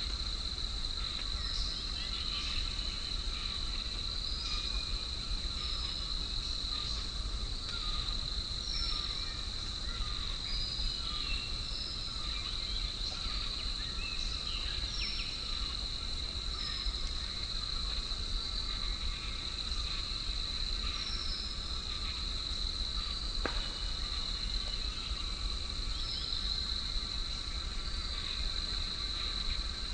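Forest ambience: a steady high-pitched insect drone, with short high bird chirps repeating every second or two and a low rumble of wind underneath.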